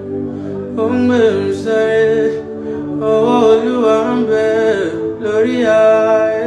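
Slow background music with a singing voice holding long, gliding notes over sustained tones.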